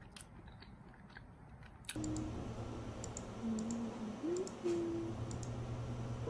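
A woman softly humming a tune under her breath while typing on a laptop keyboard, with scattered key clicks over a steady low electrical hum. This starts about two seconds in; before it there are only a few faint light clicks.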